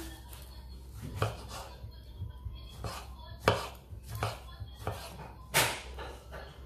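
Kitchen knife cutting through a tomato and knocking on a wooden chopping board: several separate sharp knocks at irregular intervals, about a second apart.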